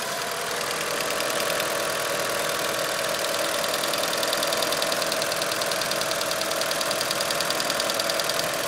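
Mitsubishi 4G63 turbocharged inline-four idling with a rapid, even ticking over the engine note, which grows louder a few seconds in. The owner suspects a lifter tick.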